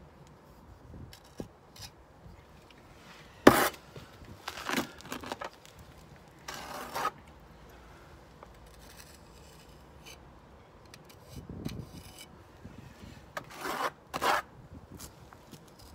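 Steel pointing trowel scraping wet mortar against brick in a few short, separate strokes, the loudest a sharp stroke about three and a half seconds in and two more close together near the end.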